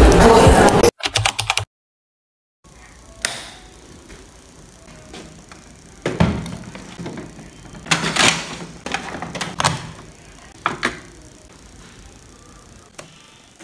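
Background music for about the first second, then the plastic knocks and clunks of a Canon printer being handled and set up: a handful of separate thuds over faint room hiss, with a lighter click near the end.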